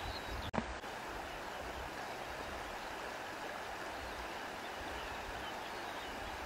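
Steady sound of running water from a flowing stream, with one brief click about half a second in.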